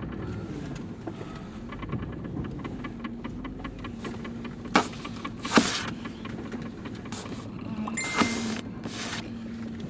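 Steady low hum inside a running car, with a few sharp knocks and rubs from the recording phone being handled, around the middle and again near the end.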